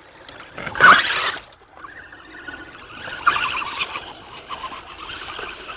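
RC off-road truck's motor and gears whining under load as it churns through mud and water, the pitch wavering with the throttle. A brief loud rush of noise comes about a second in.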